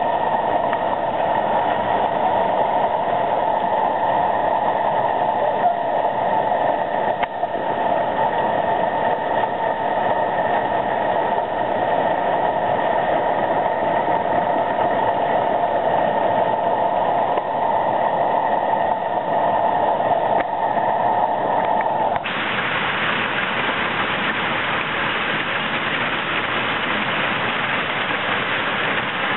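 Heavy hail, marble-sized to larger than golf balls, pelting down steadily onto paving and lawn: a dense, continuous noise of countless impacts. About three-quarters of the way through, the sound changes abruptly to a brighter, more even hiss.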